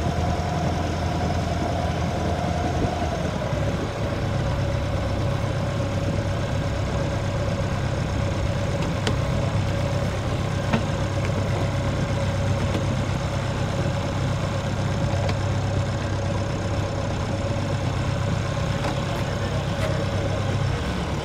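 A sailboat's inboard auxiliary engine running steadily under way, a low hum with a steady whine above it that drops slightly in pitch about three seconds in, as the engine eases off a little.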